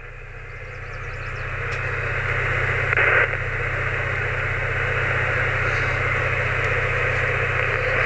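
Amateur radio transceiver's speaker hissing with receiver static on the 6 metre band, growing steadily louder over the first few seconds, with a brief louder surge about three seconds in, over a steady low hum.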